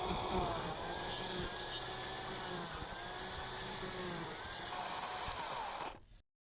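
Chainsaw carving holes into dead apple wood, its pitch repeatedly dipping and recovering as the chain bites and frees, then cutting off suddenly near the end.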